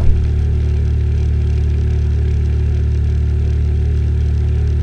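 Six-horsepower outboard motor running steadily, a constant low hum.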